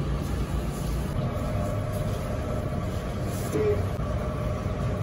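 A steady low background rumble, with faint traces of distant voices.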